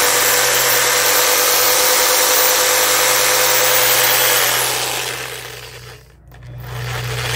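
Hyper Touch 6.5-amp corded reciprocating saw running with a steady whine, its blade cutting through thin green birch branches. It winds down to a stop about six seconds in, then runs again near the end.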